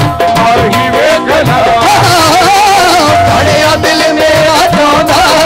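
Live Punjabi Sufi kalam: a male voice sings long, ornamented melodic runs without clear words, over a held keyboard note and a steady drum beat.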